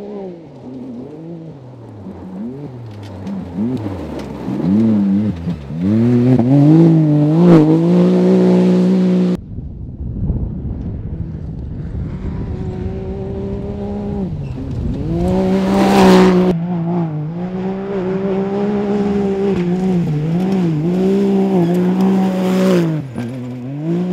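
Can-Am side-by-side competition buggy driven hard on dirt: the engine revs up and down repeatedly through gear changes and throttle lifts. About ten seconds in there is a short stretch of rushing noise, after which the engine holds high revs, loudest as it passes close around two-thirds through.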